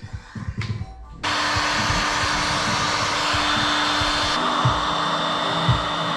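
DeWalt heat gun switched on about a second in, then running steadily: a rush of blown air with a steady hum under it. It is warming a vinyl decal as it is smoothed onto a bike frame.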